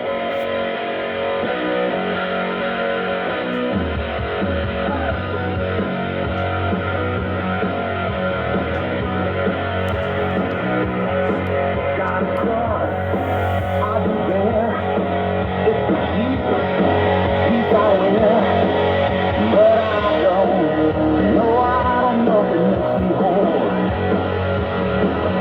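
Rock music with guitar received on a shortwave radio, its sound cut off above the upper midrange so that it comes out narrow and dull.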